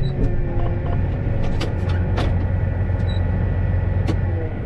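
Diesel engine of a John Deere 8530 tractor running steadily, heard from inside the cab as a low drone, with a few light clicks about one and a half, two and four seconds in.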